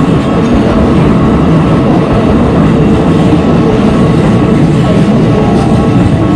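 Keikyu Line train running past a level crossing at close range: a loud, steady rumble of wheels on rail.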